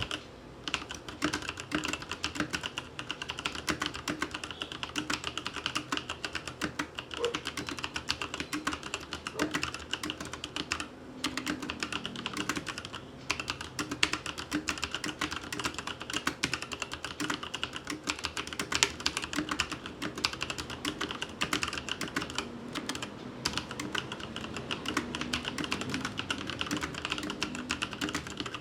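Continuous fast typing on a Logitech G413 TKL SE mechanical keyboard with brown tactile switches and PBT keycaps: a dense, steady patter of keystroke clicks with a few brief pauses.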